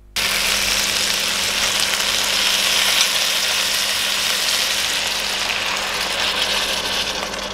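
Vegetable stew cooking hot in a stainless pan on the hob, giving a loud, steady sizzling hiss, with a faint steady low hum underneath.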